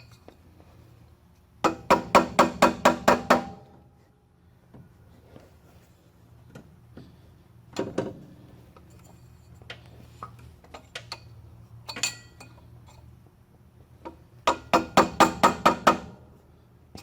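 Hammer tapping a screwdriver wedged behind a pressed-on washer on a water pump, to work the washer loose: two quick runs of about eight or nine ringing metal strikes, roughly five a second, one near the start and one near the end, with a couple of single taps between.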